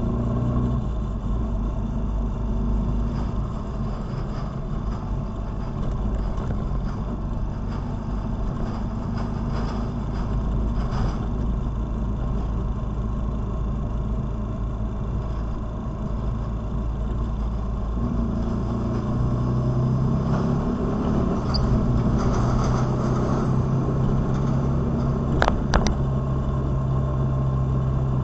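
Motorcycle engine running steadily under way, with road and wind noise. The engine note changes about two-thirds of the way through, and there are a couple of brief sharp clicks near the end.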